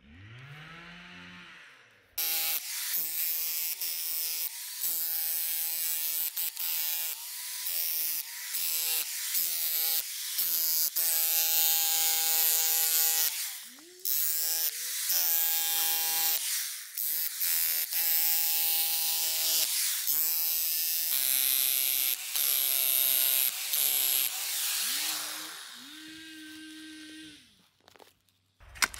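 Corded electric jackhammer fitted with a shovel blade, chiselling into the soil around a small tree's root ball. The motor winds up with a rising whine near the start, then runs in many short bursts, starting and stopping every second or few, and winds down near the end.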